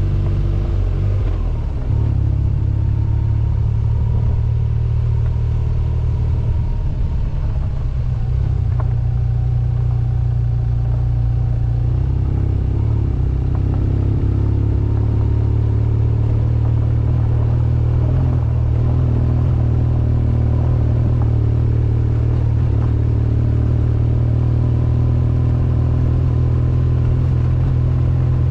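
BMW R1200GS boxer-twin engine running steadily while riding along a gravel track, with a deep steady rumble underneath. The engine note shifts about two seconds in and again near twelve seconds.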